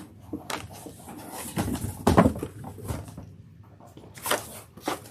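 Vinyl LP jackets and cardboard being handled: irregular rustles, slides and soft knocks, the loudest about two seconds in and again after four seconds.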